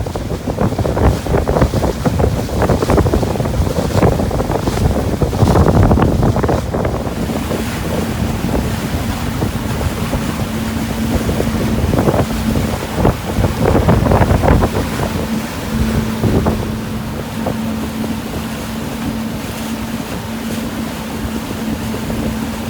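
Pontoon boat under way: its motor running, with wind buffeting the microphone in gusts. A steady hum comes in about six seconds in and holds.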